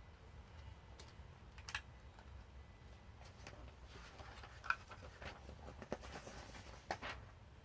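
Faint clicks and light rattling of plastic Lego pieces being handled and pressed together: a few sharp clicks a second or so apart, with a busier run of small clicks in the middle.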